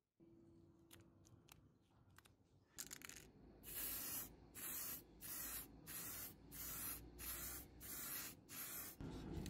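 Spray paint hissing out in about eight short, even bursts, a little over half a second apart, starting about three and a half seconds in. Before that there are only faint clicks.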